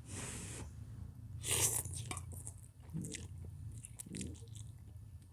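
A man eating instant ramen noodles and chewing, with a louder hissing burst at the start and another about a second and a half in. A steady low hum runs underneath.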